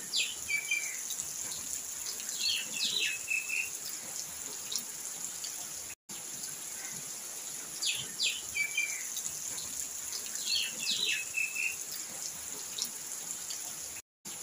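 Birds chirping in short clusters of calls over a steady high hiss; the same six-second stretch plays twice, with a brief cut to silence after each.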